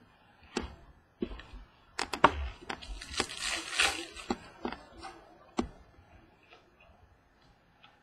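Stadium Club baseball cards being handled and flipped through by hand: a run of sharp clicks and snaps, with a brief rustling slide about three seconds in, dying away after about six seconds.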